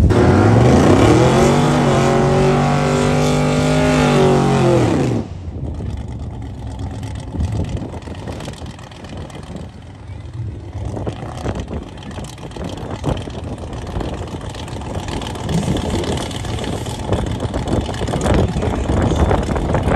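Drag-racing cars launching off the line, engines revving hard and climbing in pitch, cut off suddenly about five seconds in. After that, quieter wind and engine noise with scattered knocks.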